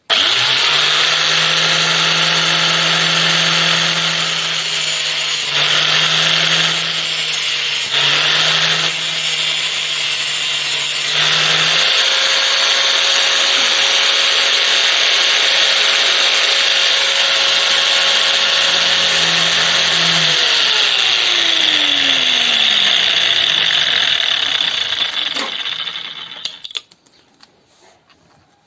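Handheld electric power tool running steadily, its sound shifting briefly a few times, then switched off about twenty seconds in, its motor tone falling as it winds down, with the noise fading out near the end.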